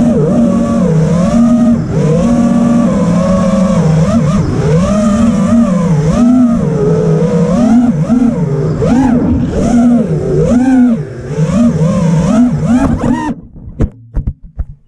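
Brushless motors and propellers of a 5-inch FPV racing quadcopter heard from an onboard camera, a whine that rises and falls with the throttle during fast, low flying. About a second and a half before the end the motors cut out suddenly, followed by a few sharp knocks as the quad tumbles to the ground.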